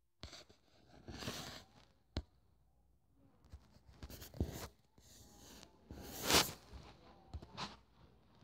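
Irregular rustling and shuffling noises with a few sharp clicks or knocks, the loudest rustle about six seconds in.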